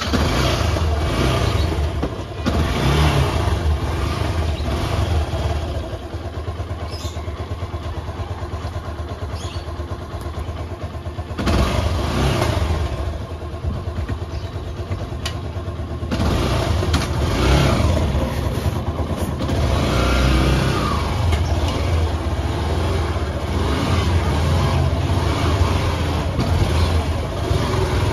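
A vehicle's engine running on the road with steady road and wind noise, its pitch rising and falling several times as it speeds up and eases off.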